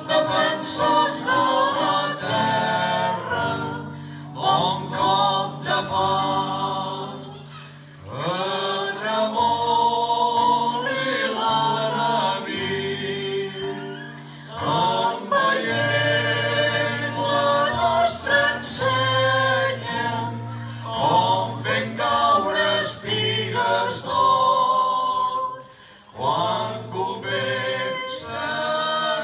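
Havanera sung live by a small group of voices in harmony, with acoustic guitar accompaniment and sustained low notes beneath. The singing pauses briefly twice between phrases.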